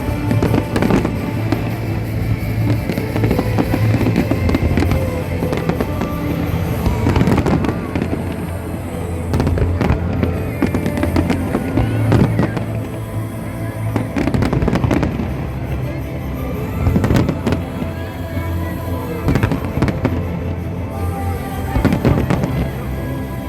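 Fireworks going off in quick succession, many sharp bangs and crackles, over loud music.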